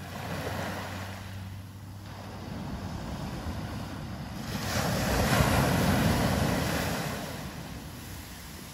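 Small ocean waves breaking and washing up a sandy beach. One larger wave surges in about halfway through, then fades back.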